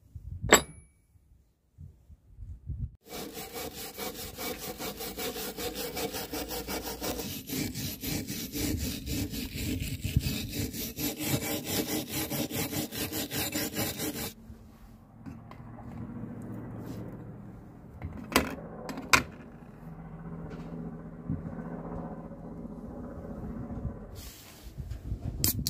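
A hand-held steel wire brush scrubbing rust off a WW1 German pickaxe head in fast back-and-forth strokes for about ten seconds. It follows a sharp clink of iron pieces set down on the bench, and gives way to a quieter stretch with two sharp knocks.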